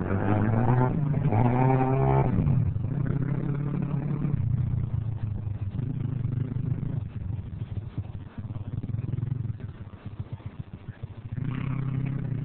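Small pit bike engine revving as it accelerates away, its pitch climbing over the first two seconds. It then runs steadier and fades with distance, and grows louder again about a second before the end.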